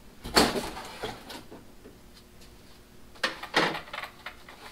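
Handling noises from unpacking: a sharp rustle or knock about half a second in, then two more shortly after three seconds, with quiet between.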